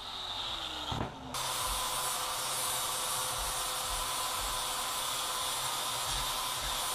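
Angle grinder winding down after a cut, its pitch falling, with a knock about a second in. A steady hiss with a faint hum then sets in suddenly and carries on.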